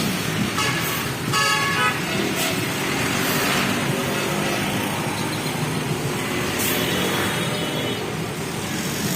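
Road traffic with engines running steadily, and a vehicle horn sounding briefly about a second in, then again more faintly near the end.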